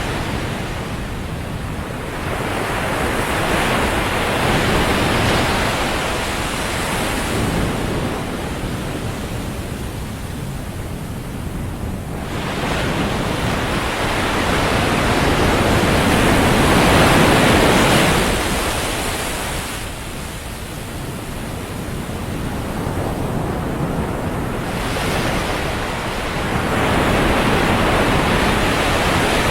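Ocean surf on a beach: waves breaking and washing up the sand in slow surges that swell and fade every several seconds, the biggest a little past halfway.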